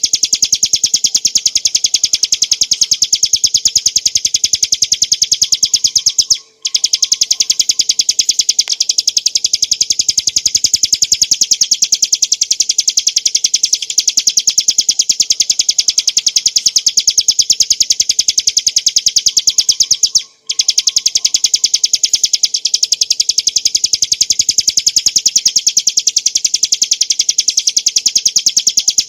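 Ciblek gunung (bar-winged prinia, Prinia familiaris) singing a loud, fast, unbroken series of high notes, stopping for a moment twice, about six seconds in and about twenty seconds in.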